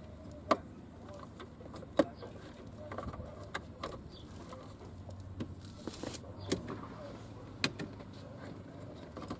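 Scattered clicks and knocks of hands working under a car's dashboard, handling plastic trim and gauge wiring, with a few sharper knocks standing out over a steady low hum.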